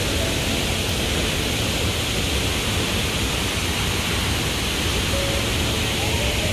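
Waterfall: the steady, even rush of falling water, holding at one level throughout.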